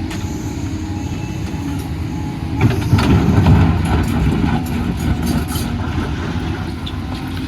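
Doosan DX250 excavator's diesel engine running steadily, with a louder stretch of heavier rumbling from about two and a half seconds in to about four and a half seconds.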